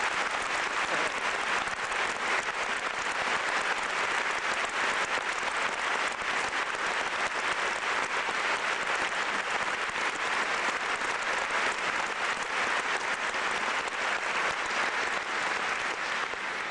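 Theatre audience applauding steadily in a dense, even clatter of many hands.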